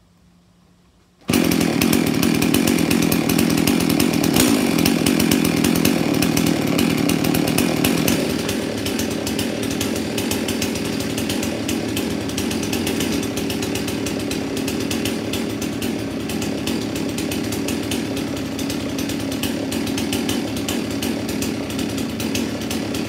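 Husqvarna 51 two-stroke chainsaw engine mounted on a bicycle, idling. It comes in suddenly about a second in and runs steadily, a little quieter after about eight seconds.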